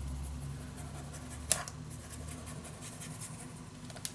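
Faint scratching and handling of cardstock paper while a folded hinge piece is glued down, with one sharp tap about a second and a half in.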